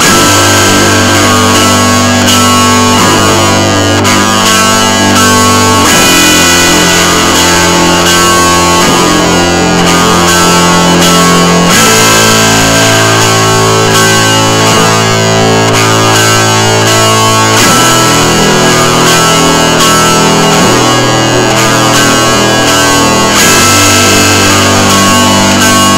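Loud guitar music, its chords and bass changing every few seconds.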